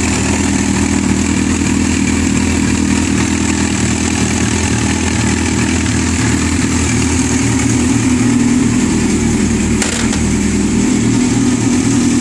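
Yamaha R6 inline-four engine idling with the timing chain rattling: the screw-type cam chain tensioner's spring can no longer keep the chain tight, and the tensioner is worn out. A brief click about ten seconds in.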